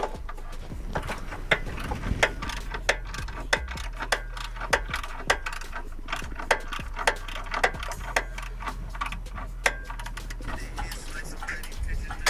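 A hand ratchet clicking in a steady rhythm, about one and a half clicks a second, over a low steady hum.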